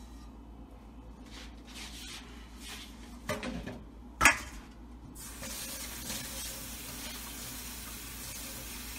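Light clinks and rustles of kitchenware being handled, a sharp knock about four seconds in, then a kitchen tap starts running steadily about five seconds in.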